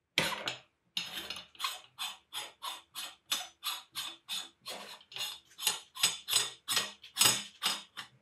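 Metal-on-metal grating in an even rhythm of about three strokes a second: the threaded front ring nut of an antique Husqvarna cast-iron meat grinder being unscrewed by hand in short twists, its rusty threads scraping.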